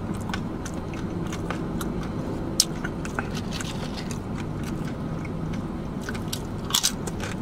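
Thick tortilla chips being bitten and chewed close to the microphone: a run of sharp crunches and crackles, the loudest about two and a half seconds in and another burst near the end.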